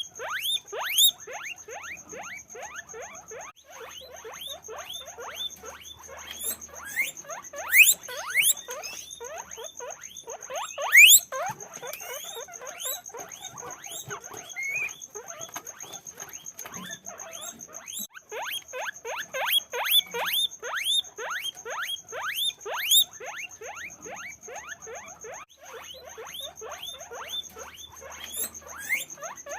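Guinea pigs squeaking continuously: rapid short rising whistles, several a second and overlapping, with a steady high whine beneath them.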